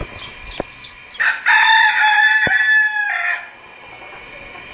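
A rooster crows once, starting about a second in and lasting about two seconds. Short high chirps from the surrounding chickens come before and after the crow.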